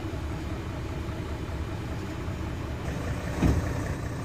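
Six-cylinder diesel engine of a Mercedes-Benz Actros truck idling, a steady low rumble heard from inside the cab. A brief thump comes about three and a half seconds in.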